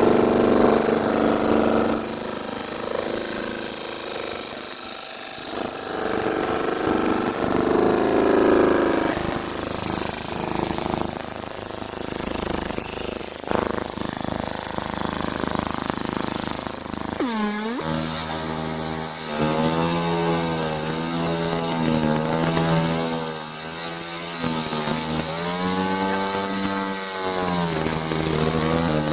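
Fiber laser marking machine running: a steady, rough mechanical buzz. About two-thirds of the way in it turns into a pitched buzz whose pitch wavers and sweeps up and down, typical of the galvo scanner mirrors tracing out a mark.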